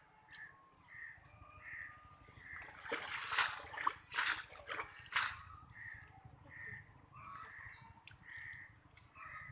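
Water splashing and sloshing for about three seconds in the middle, from hands working in shallow muddy paddy water. A bird calls in short, evenly spaced notes about twice a second throughout.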